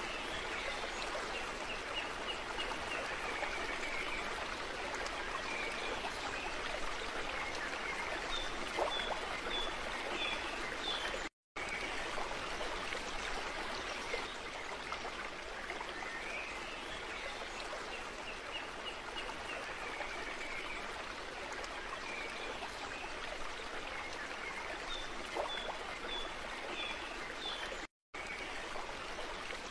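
Steady rushing water of a stream with short high chirps over it. The same stretch repeats about every sixteen seconds, a looped ambience track, and the sound cuts out briefly twice.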